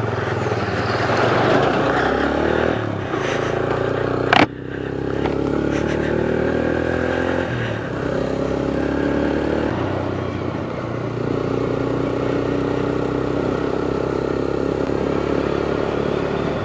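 Motorcycle engine running under way, its pitch rising and falling with throttle and gear changes. There is one sharp knock about four and a half seconds in.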